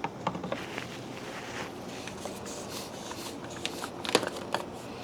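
Plastic motor oil bottle being handled: light crinkles and clicks, with a few sharper clicks about four seconds in.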